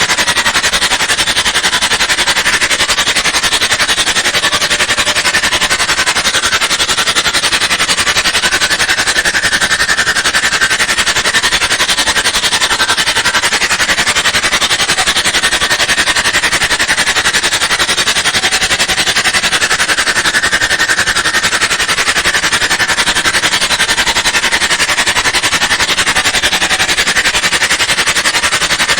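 Fast, scratchy scrubbing noise like teeth being brushed, distorted by voice-changer effects. It runs loud and unbroken, hissy and bright rather than deep.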